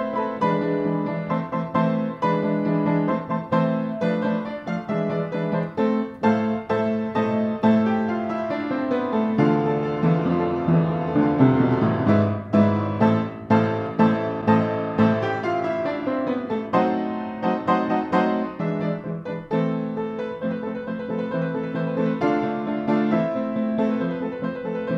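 Background piano music with quick running notes.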